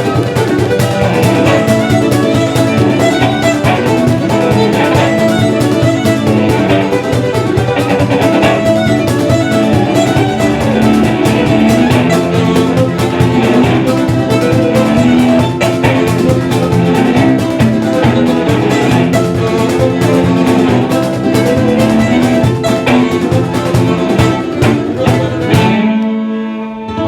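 Live band playing a loud instrumental passage with a fast, steady beat; near the end the beat stops and the band holds a final chord.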